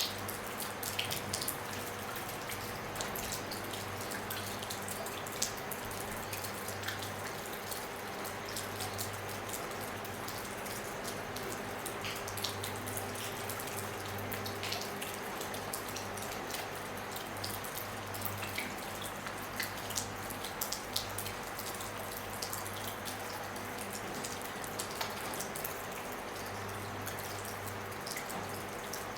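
Rain falling on a roof: a steady patter with many scattered individual drops and drips ticking through it.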